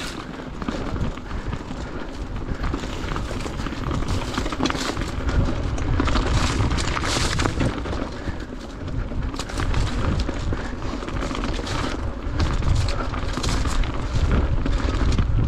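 Mountain bike riding down a rocky singletrack: tyres and bike clattering over stones in a steady run of sharp knocks, under heavy wind rumble on the microphone.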